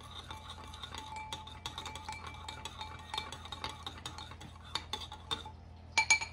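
Metal spoon stirring a liquid oil-and-maple-syrup glaze in a stoneware mixing bowl, with a rapid patter of light clinks as the spoon scrapes and taps the bowl's sides. A few louder clinks come near the end.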